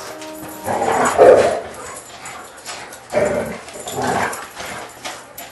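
Dogs play-fighting, barking in short rough bursts: the loudest comes about a second in, with more near the middle and toward the end.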